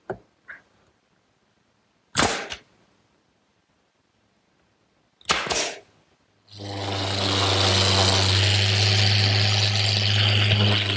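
Pneumatic brad nailer firing: a sharp shot about two seconds in and a quick double shot a little after five seconds. From about six and a half seconds a machine starts up and runs steadily with a low hum and a hiss, louder than the nail shots.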